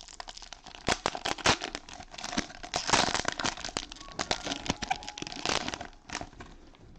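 Cellophane wrappers of Panini Mosaic football cello packs crinkling and tearing as the packs are opened, a dense run of sharp crackles that thins out near the end.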